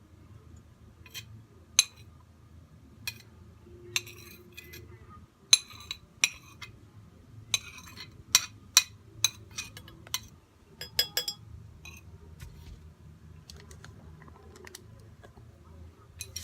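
A utensil clinking and tapping against a glass jar as mashed garlic is scraped into it: a dozen or more sharp, irregular clinks.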